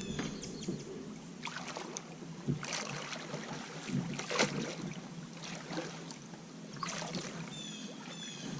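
Kayak paddle strokes dipping and splashing in the water, irregular, about one every second or so, over a steady rush of water. A small bird chirps in short repeated notes near the start and again near the end.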